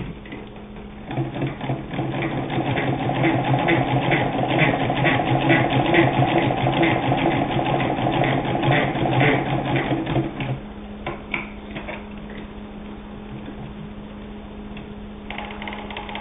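Singer 66 hand-crank sewing machine stitching through leather: a fast, even clatter of the needle and mechanism. It starts about a second in and stops after about ten seconds, followed by a few separate clicks.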